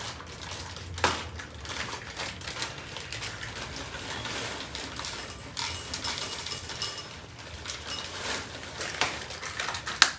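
Hands working a plastic seal-and-pour bag clip on a food packet: rustling handling noise with a few sharp clicks, one about a second in and two near the end.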